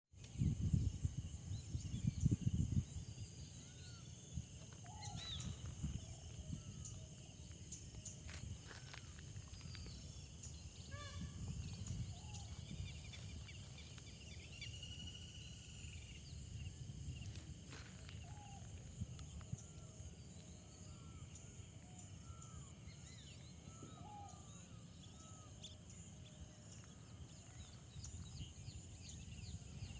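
Many birds calling with short chirps and whistles over a steady high-pitched insect drone. Wind rumbles on the microphone for the first few seconds.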